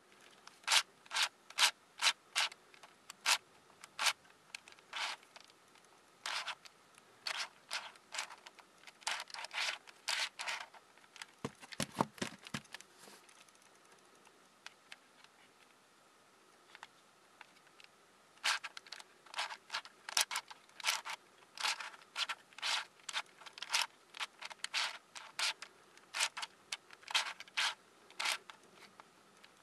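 Plastic layers of a Siamese 5×5×5 twisty puzzle, two East Sheen 5×5×5 cubes fused together, being turned by hand: a run of short clicking, scraping turns, with a quieter stretch of a few seconds midway.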